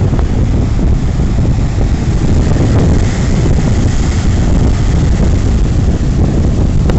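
Strong wind buffeting the microphone in a steady low rumble, with breaking ocean surf underneath.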